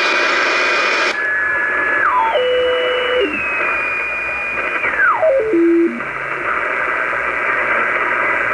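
Shortwave radio receiver in AM mode being tuned between stations: steady static hiss with whistle tones that drop in pitch in small steps as the frequency is stepped, twice. About a second in, a steady whistle stops and the hiss loses its top.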